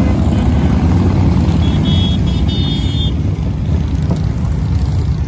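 A steady stream of motorcycles, largely V-twin cruisers and baggers, riding past close by with a continuous loud engine rumble. A brief high-pitched tone sounds for about a second near the middle.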